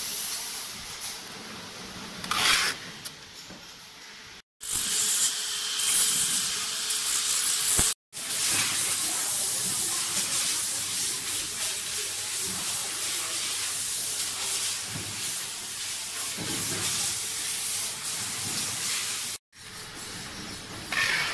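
Handling noise from packing improved cookstoves: cardboard and stainless-steel stove parts rubbed, scraped and knocked by hand, over a steady hiss. The noise cuts out briefly three times where clips are spliced, with a sharp knock about two and a half seconds in.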